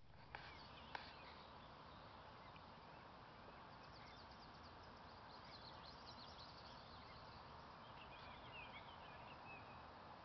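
Near silence outdoors: faint birdsong chirping in the background over a low steady hiss, with two small clicks in the first second.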